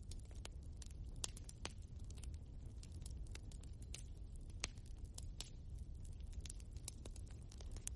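Wood fire burning in a fireplace: a steady low rumble of the flames with frequent sharp, irregular pops and crackles from the burning logs.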